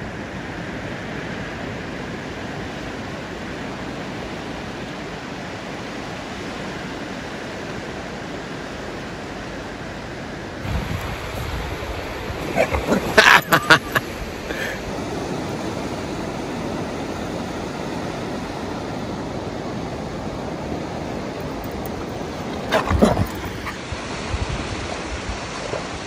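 Steady wash of small waves breaking on a sandy, rocky beach. A cluster of short, loud sounds comes about halfway through, and another brief one near the end.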